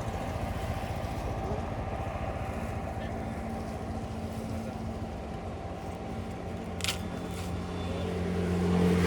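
Motor vehicle engine running steadily nearby, swelling louder near the end as a vehicle passes on the road, with a short click about seven seconds in.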